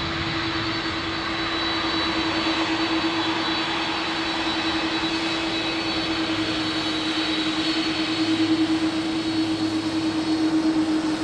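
Jet aircraft engines running steadily, a constant drone with a faint high whine over a rushing noise, swelling slightly near the end.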